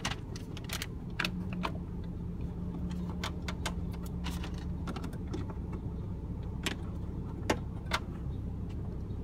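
Scattered sharp clicks and light knocks of plastic interior trim panels being pried and handled, over the steady low hum of the 2019 Nissan Frontier's engine running at idle.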